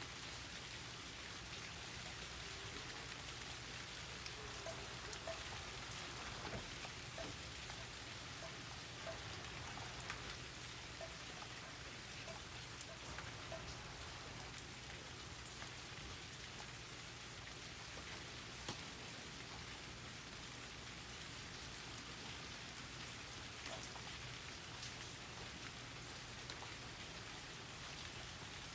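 Steady rain falling on outdoor surfaces, a constant hiss with individual drops tapping here and there. A short run of faint, higher plinks comes between about 5 and 14 seconds in.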